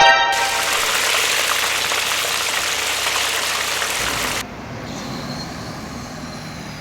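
Heavy vehicle: a brief rising horn note at the start, then a loud, steady hiss for about four seconds that cuts off suddenly, leaving a quieter low rumble.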